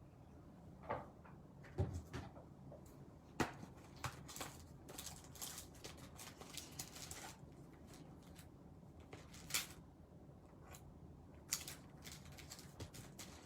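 Quiet scattered clicks, taps and rustling as small craft embellishments and their packets are handled on a tabletop, with a longer spell of rustling in the middle.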